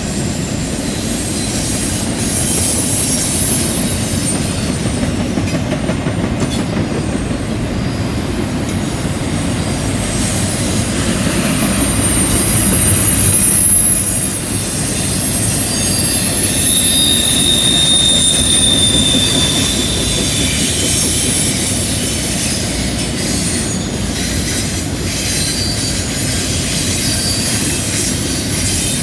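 CN freight train rolling past on a curve: a steady rumble and clatter of wheels on rail, with thin high wheel squeal from the curve that is strongest in the middle stretch.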